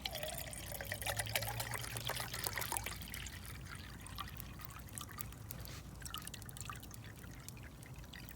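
Wood campfire crackling and popping, with irregular sharp snaps, busier in the first few seconds.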